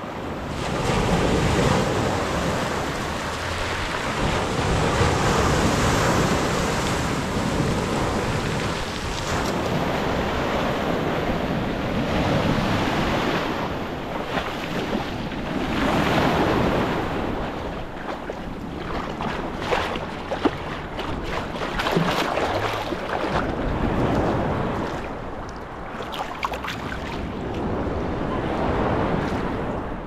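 Sea waves washing and breaking, the sound surging and ebbing every few seconds, with a few short sharp clicks in the second half.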